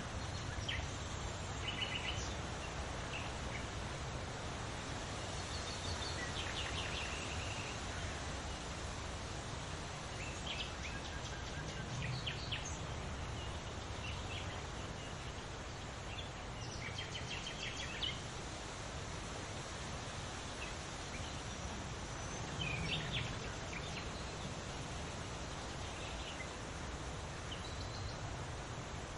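Songbirds calling and singing, with short rapid trills and scattered chirps, over a steady rustle of leaves in the wind.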